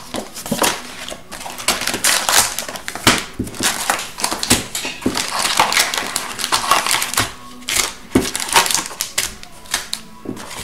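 Cardboard trading-card box being opened and its wrapped card packs pulled out and handled: a dense, irregular run of crinkling, rustling and clicking.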